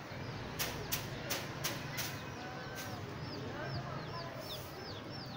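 Five sharp snaps about three a second in the first two seconds, then a bird calling, a quick run of short falling chirps that starts a little under three seconds in.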